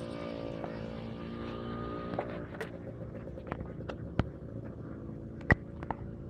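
A motor vehicle's engine running with a steady hum that fades after about two and a half seconds. Several sharp clicks come through over it, the loudest about five and a half seconds in.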